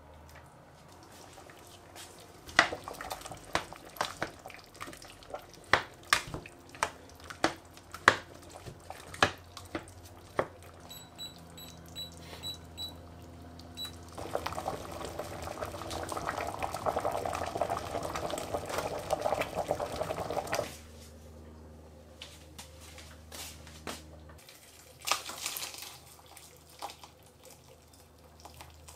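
Sharp knocks and clinks of a stainless steel pot and its lid being handled, then a quick run of about six short high beeps from an induction hob's touch controls. After that comes about six seconds of liquid bubbling that cuts off suddenly.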